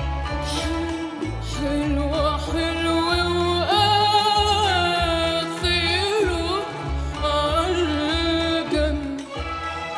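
A young woman singing an Arabic song in an ornamented, melismatic style, holding a long note in the middle with quick turns around it, over a backing track with a steady pulsing bass.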